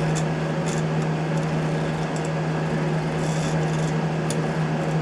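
Steady hum of a Haas CNC milling machine idling, with a constant low drone from its fans and drives and a few light ticks scattered through.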